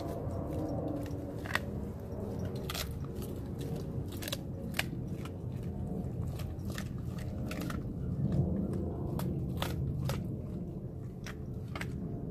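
A large dog chewing frozen raw food, with irregular sharp crunches, about a dozen of them, over steady low wet chewing.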